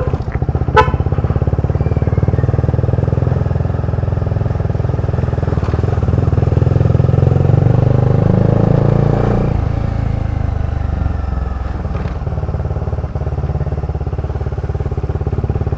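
Bajaj Dominar 400's single-cylinder engine running as the motorcycle is ridden. The engine note rises in pitch and loudness around the middle, then drops back suddenly a little after the ninth second.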